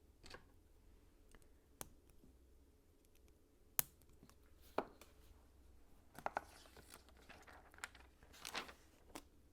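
Hard plastic LEGO pieces being handled and pressed together: a scattered series of sharp clicks and short rustling scrapes, the sharpest click about four seconds in and a small cluster near the end.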